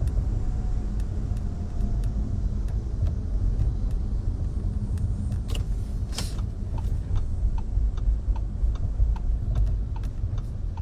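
Steady low rumble of a car heard from inside the cabin, with a short hiss about six seconds in and, from about seven seconds on, a faint ticking about twice a second.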